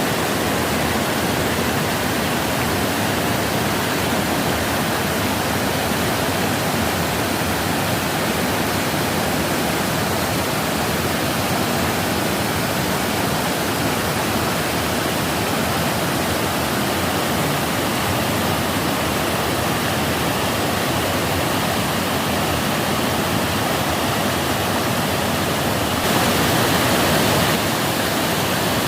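Sari Khosor waterfall: a steady, dense rush of falling water with no letup. It turns briefly louder and brighter for a second or two near the end.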